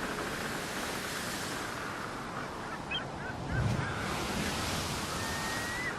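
Steady outdoor ambience of rushing water, with short birdcalls from about three seconds in and a low thump shortly after.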